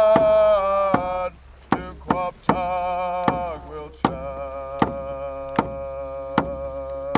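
Singing in long held notes over a steady drumbeat, a little more than one beat a second. The voice breaks off briefly about halfway through, then takes up another long note.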